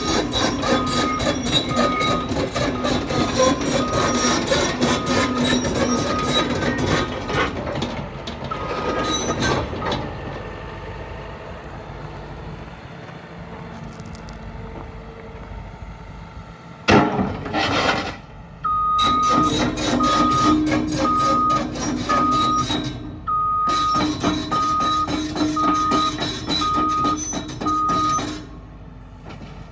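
Caterpillar 316EL tracked excavator running and travelling, with its tracks clattering and its travel alarm beeping about once a second. It eases off for several seconds midway, and a loud clank comes before it moves off again with the alarm beeping.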